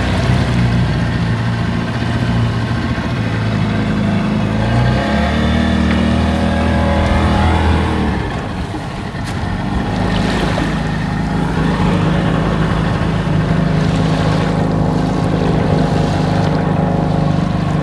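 Outboard motor driving an open wooden boat at speed, with water rushing past the hull. The engine note dips briefly about halfway through, then settles back to a steady run.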